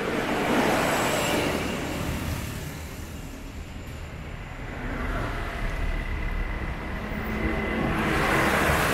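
Road traffic in a slow-moving jam: vehicle engines running and tyres on the road. The sound swells louder as large trucks pass close by, just after the start and again near the end.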